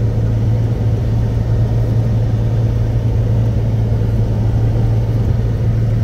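Steady low drone and rumble of a car heard from inside its cabin, with an even noisy haze over it.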